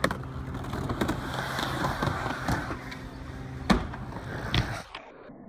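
Skateboard wheels rolling on a wooden ramp, with sharp clacks of the board against the ramp, the loudest about three and a half seconds in and again a second later. Near the end the sound drops to a quieter, dull hum.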